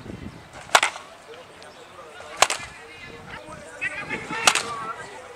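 Baseball bat hitting pitched balls in batting practice: three sharp cracks about two seconds apart.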